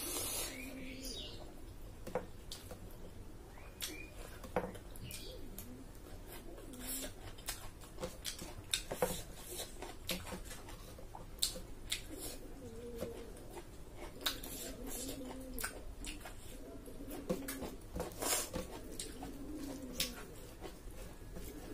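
Eating by hand from a steel plate: many short, sharp clicks of chewing and lip smacking, and fingers mixing rice on the plate, with short low hums here and there.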